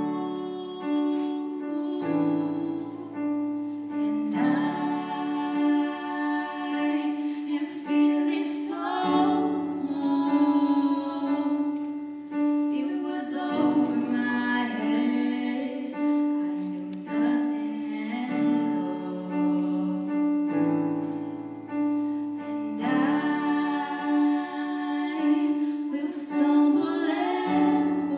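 A song with singing over chords that change every two or three seconds, above a note held throughout.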